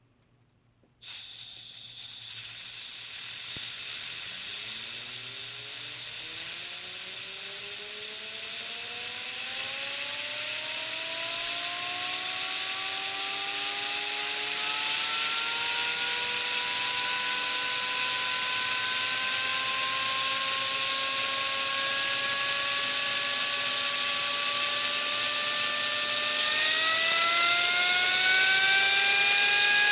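Compressed air at 125 psi blasting through a 3D-printed jet-engine fidget spinner with three impellers: a loud hiss starts suddenly about a second in, and a whine climbs steadily in pitch as the impellers spin up, stepping higher again near the end.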